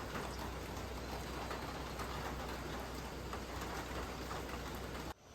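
Steady rain falling, an even hiss of drops that cuts off suddenly near the end.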